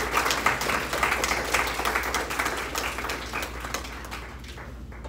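Audience applauding, the clapping dense at first and thinning out to a few claps near the end.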